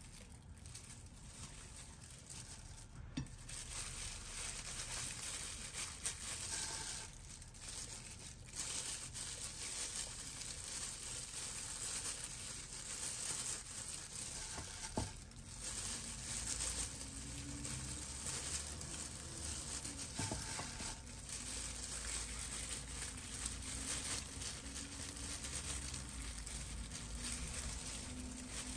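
Thin plastic food-prep gloves crinkling and rustling, with soft squishing, as hands stuff fried tofu puffs with a shredded vegetable filling, over a steady faint hiss.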